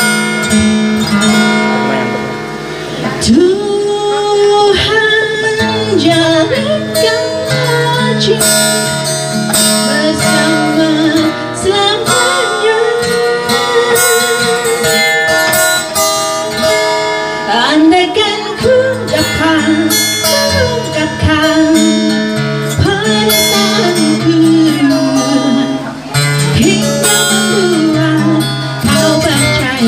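A woman singing with a strummed acoustic guitar accompanying her, amplified through a microphone and loudspeaker.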